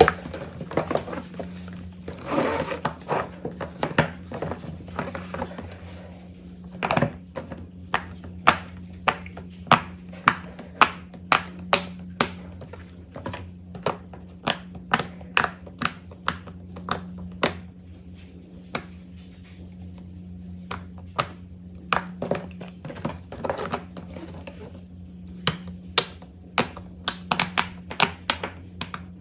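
Silicone pop-it fidget toys being pressed, their bubbles giving sharp pops in quick runs of two or three a second, with pauses between the runs.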